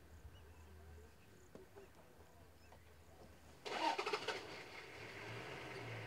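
A vehicle engine starting: a brief rapid cranking burst about three and a half seconds in, then the engine catches and keeps running steadily. A faint low hum comes before it.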